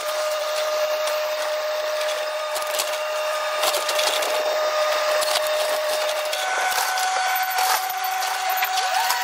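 Takeuchi compact excavator working, its engine and hydraulics giving a steady whine that steps up in pitch about two-thirds of the way through and rises again near the end. Over it, wood cracks and splinters as the machine tears the garage's framing and siding apart.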